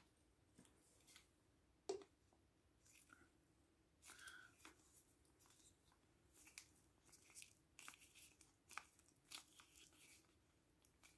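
Faint, scattered crinkles and clicks of gloved hands handling a squeezable tube of hair colour creme and a plastic developer bottle as the creme is squeezed into the bottle.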